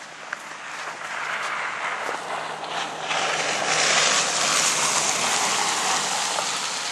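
Pickup truck driving past, its tyre and engine noise swelling to a peak about four seconds in and then fading as it moves away.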